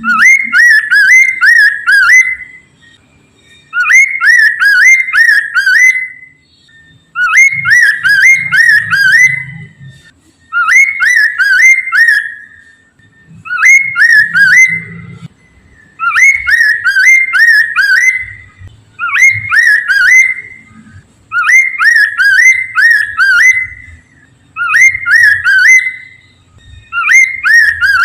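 Poksay mandarin singing: about ten loud bursts of quick, repeated whistled notes, each burst about two seconds long and coming roughly every three seconds, with short pauses between.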